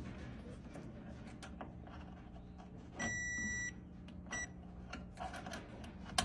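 Multimeter continuity beeper sounding as the probes touch a dryer thermal fuse's terminals: a steady high beep for under a second about three seconds in, a brief blip a second later, then the beep again at the very end. The beep shows the fuse has continuity and is good. Faint clicks of the probes being handled come in between.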